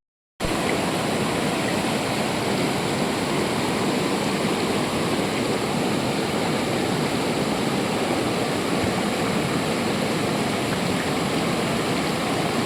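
Flowing river water, a steady rushing noise; the sound drops out for a split second right at the start.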